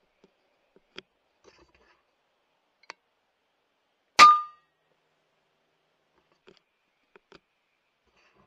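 A single shot from a .22 FX Impact M3 PCP air rifle about four seconds in: a sharp crack followed by a short metallic ring. A few faint ticks and clicks come before and after it.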